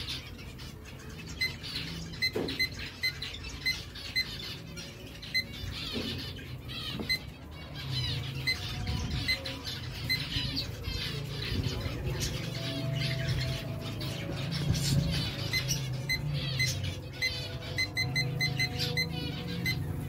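Short electronic beeps from an HTC-2 digital thermometer clock, repeating about once a second as its buttons are pressed over and over to set the clock. Small cage birds chirp and squawk throughout, and a low hum comes in about eight seconds in.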